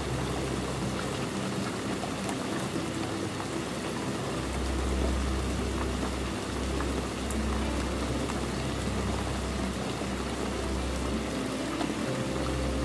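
Steady rain falling on window glass, with a few single drop ticks. A low rumble runs underneath and grows stronger about four seconds in.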